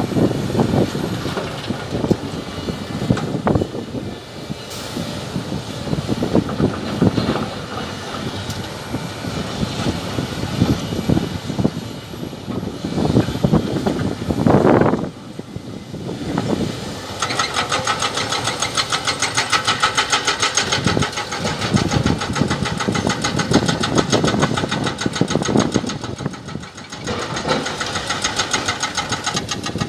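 Diesel excavators working rock, with irregular heavy knocks and scraping in the first half. Over the second half comes a fast, even hammering, typical of a hydraulic rock breaker chiselling stone.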